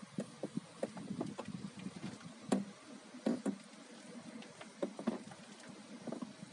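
Fenox manual steering rack in a Daewoo Nexia creaking with irregular clicks and knocks, a few sharper ones about two and a half, three and five seconds in: the rack fault the owner is showing.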